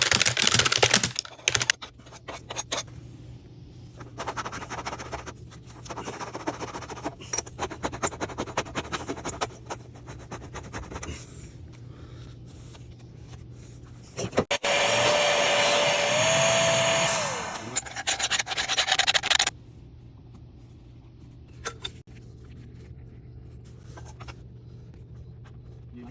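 Hand-tool work on metal gas piping: irregular scraping and rubbing strokes, then a power tool runs for about three seconds, stepping up in pitch before it spins down. A steady low hum runs underneath.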